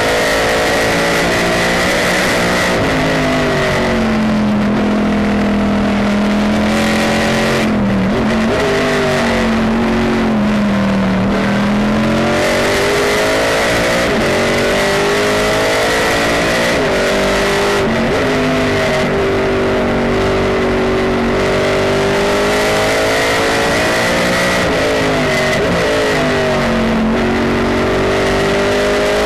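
Pontiac GTO race car's V8 heard from inside the cockpit at racing speed, revs climbing hard and then dropping on lifts and downshifts several times, with a steady high whine underneath.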